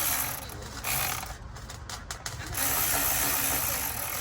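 Cordless electric ratchet running in three short spurts, the longest about a second and a half near the end, each with a high motor whine that starts and stops abruptly.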